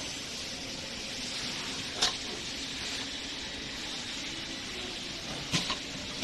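Mini one-shot chocolate depositor running with a steady hiss and low hum. There is a sharp knock about two seconds in and a quick double knock near the end as the depositing head cycles.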